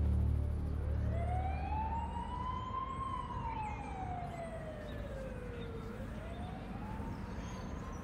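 A siren wailing slowly: its pitch climbs for about two seconds, falls for about three, then climbs again near the end. A low rumble dies away in the first second or so.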